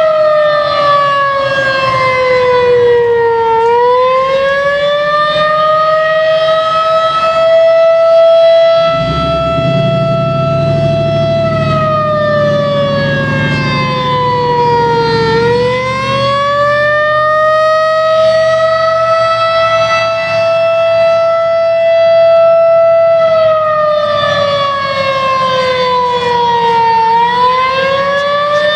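Federal Signal 2001 civil defense warning siren sounding a test, a loud held tone that sags in pitch and climbs back about every twelve seconds, three times. A low rumble runs underneath for several seconds near the middle.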